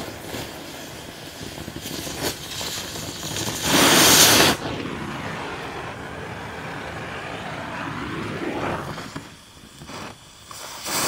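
Victor oxy-acetylene cutting torch with a scarfing tip hissing as it cuts the shipping container's corrugated steel wall, with one louder rush lasting about a second near the middle. The hiss drops off near the end.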